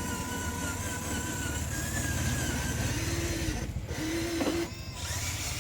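Small electric motor and gears of a radio-controlled Kubota toy tractor running, a steady hum with a thin whine that wavers in pitch.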